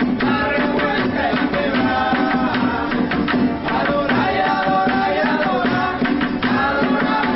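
Venezuelan traditional music: hand drums play a fast, steady rhythm under a melodic line.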